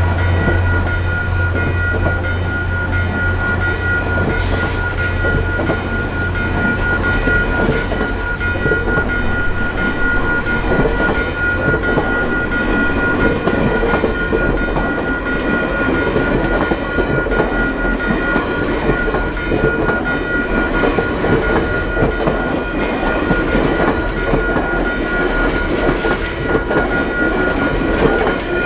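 Train passing: a low engine drone fades over the first few seconds, then the cars rumble and clatter over the rails, with a steady high-pitched ringing tone held throughout.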